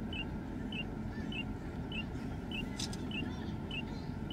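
Car cabin noise from the engine and road at low speed, steady and low-pitched. A light, regular tick repeats about every 0.6 seconds, with one sharper click about three seconds in.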